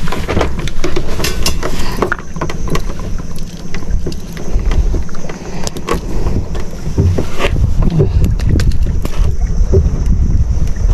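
Steady low rumble of a running boat engine with wind on the microphone, and scattered clicks and taps as metal pliers work a lure free from a hooked fish's mouth.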